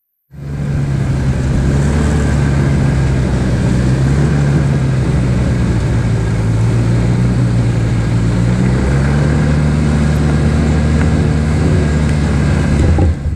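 Snowmobile engine running steadily under way over snow, its pitch climbing a little about nine seconds in.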